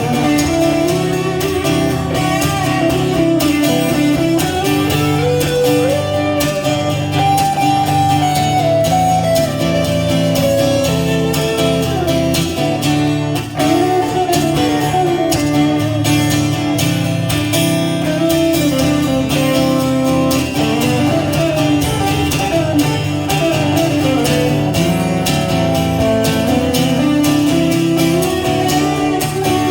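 Live band playing an instrumental guitar passage: a lead guitar line with bending, gliding notes over a steady strummed and low accompaniment.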